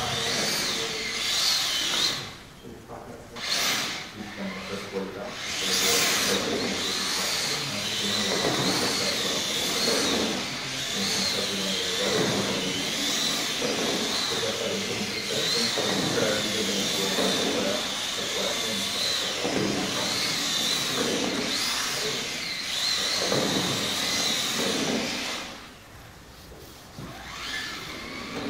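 Scaled RC car's small electric motor whining while the car drifts in circles, its pitch wavering up and down as the throttle is worked to hold the slide. The sound drops away briefly twice, about two seconds in and near the end.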